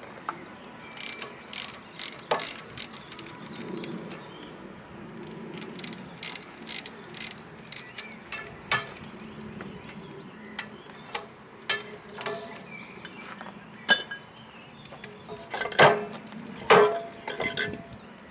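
Irregular metallic clicks and clanks from the hub fittings of a large spoked cable drum as they are worked by hand, with a short ringing clink about 14 seconds in and louder knocks near the end.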